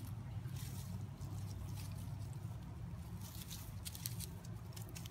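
Grass and leaves rustling in short scratchy bursts as a puppy wriggles and scuffles on the ground under a hand, over a steady low hum.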